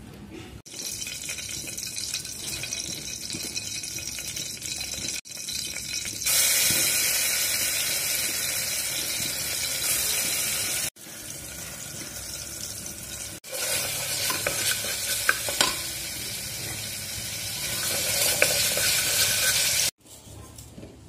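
Oil sizzling and frying in an aluminium pressure cooker, with a spatula stirring and scraping the pan. The sizzle breaks off and restarts several times and is loudest from about six seconds in, with a few sharp clicks of the spatula in the later part.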